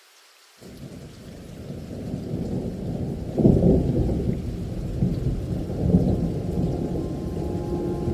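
Thunder rumbling over rain, starting suddenly about half a second in and swelling to a loud peak around three and a half seconds, with smaller rolls after; the sound is deep and muffled. A few held music notes come in near the end.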